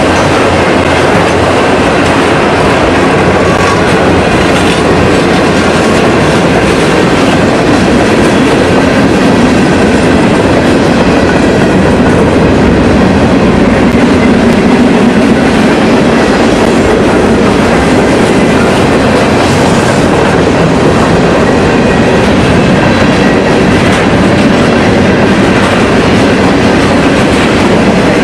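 A train running on the rails: a loud, steady rumble of wheels on track that holds without a break.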